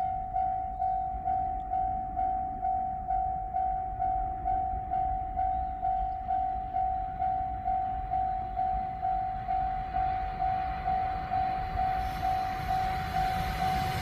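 Japanese railway level-crossing warning bell ringing, an even electronic ding a little over twice a second, over a low rumble. Near the end the rush of an approaching train starts to rise beneath it.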